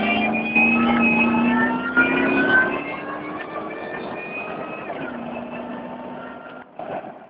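2004 Ford F-150 SVT Lightning's supercharged 5.4-litre V8 pulling under load, a whine climbing slowly in pitch over the engine note. About three seconds in it eases off and runs quieter and steadier, then the sound cuts off abruptly at the very end.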